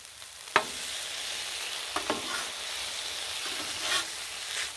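Chili of ground meat, beans and chopped vegetables sizzling steadily on the steel cooktop of a Blackstone griddle, while a metal spatula scrapes and stirs it. The spatula clacks sharply against the steel plate three times, the loudest about half a second in.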